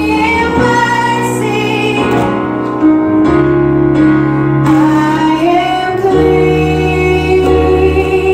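A woman singing a slow song into a microphone over held chords on an electronic keyboard. The chords change every few seconds.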